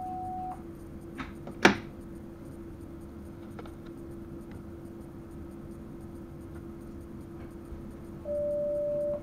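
Train driver's cab sounds: a steady electrical hum with two beeps from the cab equipment, a higher one that stops about half a second in and a lower one in the last second, and a sharp click between them.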